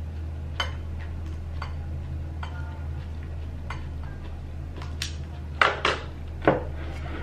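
Utility lighter being clicked repeatedly, about once a second, to relight a jar candle, over a steady low hum. Two louder knocks near the end as the lighter is put down on the table.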